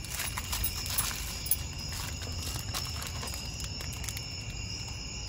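Night insects calling steadily in two high, even tones, over a low steady rumble. A few light clicks and rustles of cardboard glue-trap packaging being handled and unfolded come in the first second or so.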